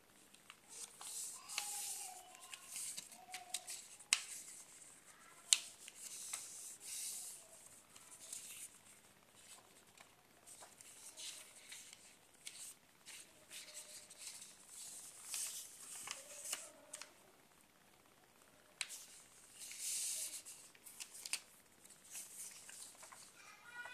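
A sheet of white paper being folded and creased by hand: irregular crisp rustling in short bursts, with a couple of sharp snaps of the paper a few seconds in.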